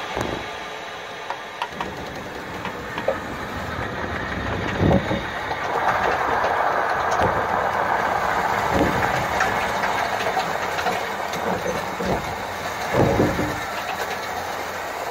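Train wheel rolling on the rail while the sander blows sand onto the rail ahead of it, heard from close beside the wheel. A steady noisy rumble and hiss, loudest in the middle, with a few heavy knocks about four seconds apart.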